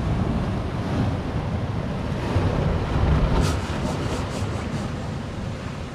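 Surf and wind rumbling on the microphone. A little past halfway comes a run of short hisses, about five a second and fading out: air forced out of a rock crevice as waves build pressure below, a bicycle pump kind of hiss.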